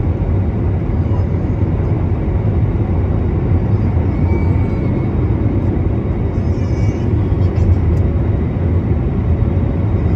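Cabin noise of an Airbus A321neo climbing out just after takeoff, heard from a seat over the wing: the engines at climb power and the rush of air making a steady, loud, low roar.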